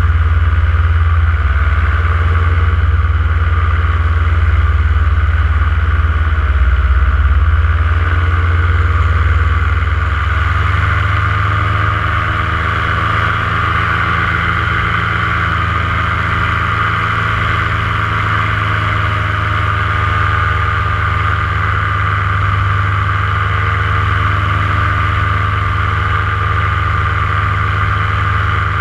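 Paramotor engine and propeller of a powered paraglider running steadily in flight. About ten seconds in, its tone changes and it gets slightly quieter, then holds steady.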